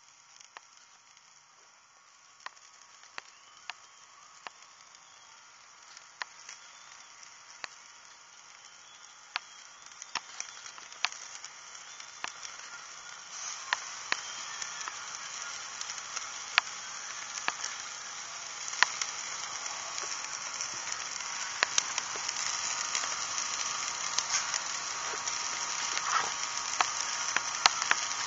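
Iguana meat sizzling on a charcoal grill, with sharp crackles and pops scattered through it. The sizzle grows steadily louder.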